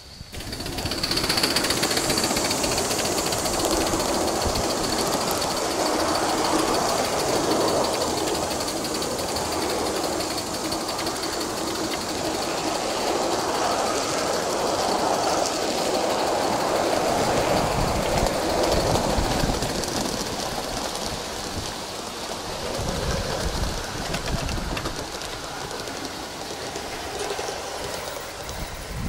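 Gauge 1 live steam model of a Great Northern S2 4-8-4 locomotive running with its freight cars at close range, a steady rolling clatter of wheels on the track, becoming quieter over the last third.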